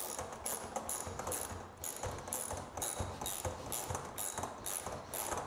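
Socket ratchet clicking in quick repeated strokes, about two to three a second, as a 7/16 socket tightens stainless steel bolts with nylock nuts.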